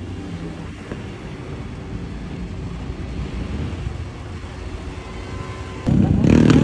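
A steady engine drone with road noise while riding. Near the end it gives way suddenly to much louder sport motorcycle engines revving close by.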